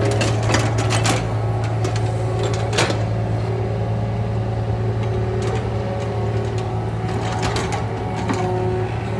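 Diesel engine of heavy construction machinery running steadily with a low hum, with intermittent metallic clanks and clicks, a cluster near the start, one about three seconds in and more near the end.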